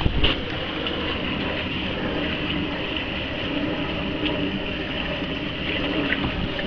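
Steady rushing noise of a sailboat under way, with a brief low buffet of wind on the microphone at the very start.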